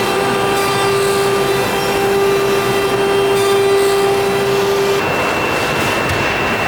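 CNC nesting router machining wooden cabinet panels: a steady machine whine over a broad rushing noise. About five seconds in the held tone drops away and a higher whine takes over.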